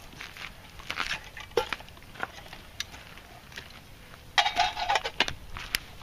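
Metal clinks and knocks from a steel water bottle and canteen cup being handled, with a denser run of rattling metal strikes about four and a half seconds in.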